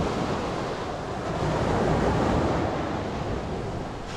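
Surf washing onto the beach, swelling about two seconds in, with wind buffeting the microphone.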